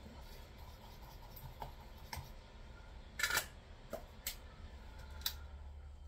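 A few small, irregular clicks and taps of wire and alligator clips being handled on a helping-hands soldering stand, the loudest a little over three seconds in, over a low steady hum.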